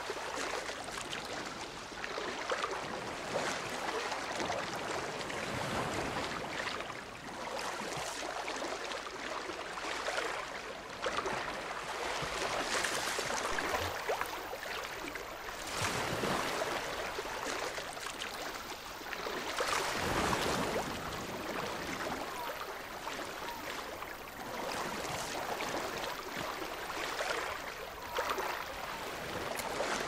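Shallow sea water rushing and sloshing around a camera held just under and at the surface, swelling and easing every couple of seconds.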